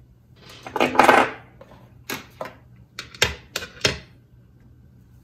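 Small electronic parts being handled on a plastic digital kitchen scale. There is a clattering rustle about a second in, then a quick series of sharp clicks and taps as a video transmitter, camera and antenna are set down on the platform.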